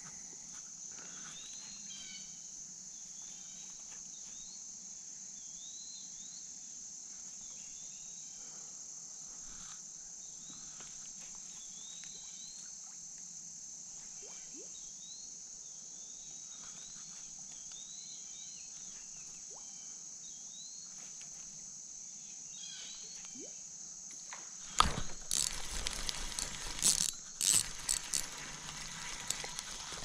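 A steady, high insect drone with a bird's short rising chirps repeating every second or two. About 25 s in, loud irregular knocks and rattles of fishing gear being handled in the canoe.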